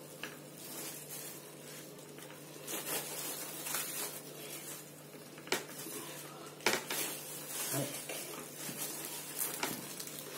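Clear plastic sheet crinkling and rustling as hands lift it to roll a slab of frozen ice cream, with a few light knocks against a wooden board. A faint low hum sits underneath.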